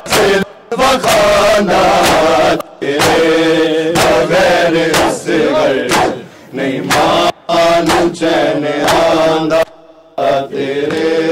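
Men's voices chanting a Punjabi noha lament in unison, with chest-beating matam slaps keeping a regular beat. The chant breaks off briefly about ten seconds in, then resumes.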